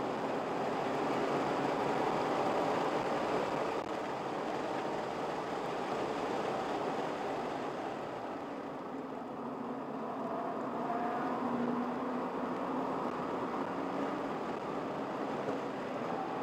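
Car engine and tyre-and-road noise heard from inside the cabin while the car is driven on a track. The sound eases a little for a couple of seconds around the middle, then builds again.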